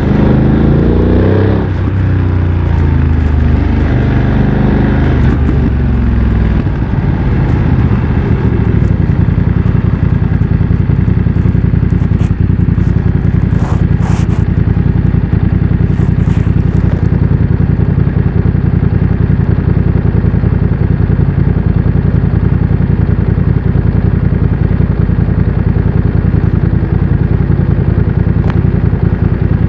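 BMW F900 XR parallel-twin engine through a MIVV X-M1 exhaust, revs rising and falling several times over the first few seconds, then settling to a steady low-revving run from about nine seconds on.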